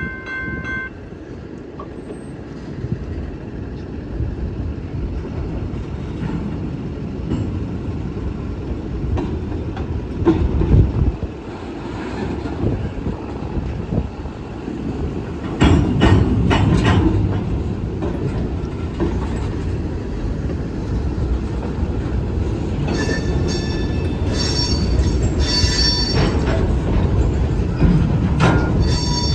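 Freight cars rolling through a rail yard during switching: a steady low rumble of wheels on rail with occasional clanks and knocks. A held tone stops about a second in, and near the end the wheels squeal in high steady tones.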